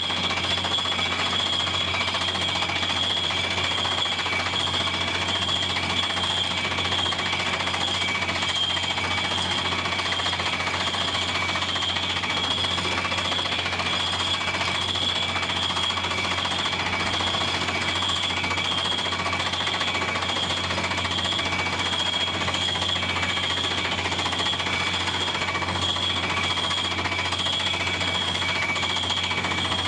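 Truck-mounted water well drilling rig drilling, a steady, rapid jackhammer-like rattle with a constant high whine over it and no let-up.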